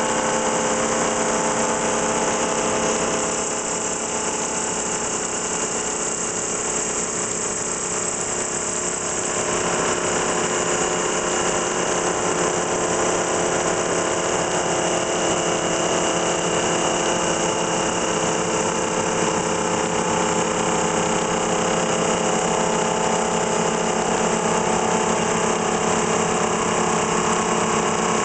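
FPT Ronin floor-type CNC boring mill threadmilling the throttle end of a steel locomotive dry pipe under flood coolant: a steady machine hum with several held tones over a continuous hiss.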